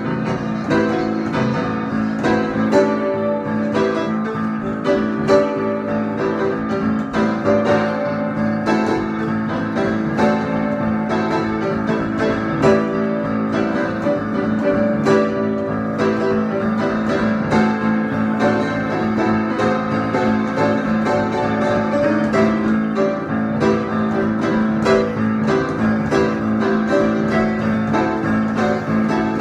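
Improvised instrumental music played on a keyboard, a stream of piano-like notes over a sustained low note.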